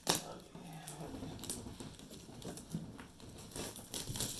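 Light clicks, taps and rustling of hands working a metal collector's card tin and its packaging open, with a sharp click right at the start.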